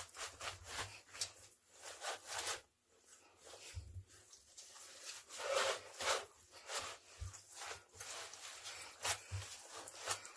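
Wet laundry being handled and dropped into the plastic spin basket of a small portable twin-tub washer: irregular rustling and rubbing of cloth and plastic, with no motor running.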